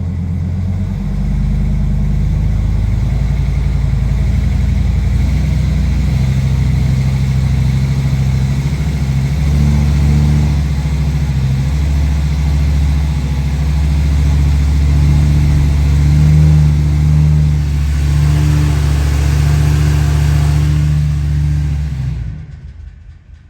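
Ford F-250 engine held at raised revs in drive against the brakes (brake torquing), heard from inside the cab, running steadily at a loud level; the revs drop back sharply near the end.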